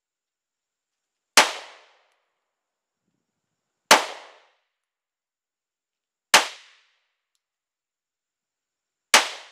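Four 9mm pistol shots from a Polymer 80 Glock 19 build, fired slowly about two and a half seconds apart, each dying away within about half a second.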